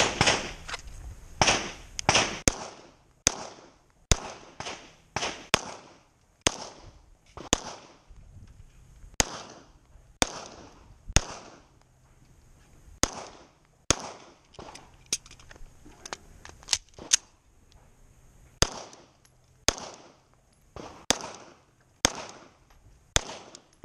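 Semi-automatic pistol fired repeatedly close to the microphone: about thirty sharp shots, mostly in quick pairs a fraction of a second apart, with pauses of a second or more between strings.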